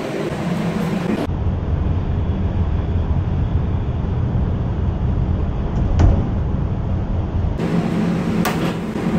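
Steady low rumble of commercial kitchen background noise, with a single sharp click about six seconds in. Near the end come a couple of short knocks of a knife on the steel counter as ropes of dough are cut into pieces.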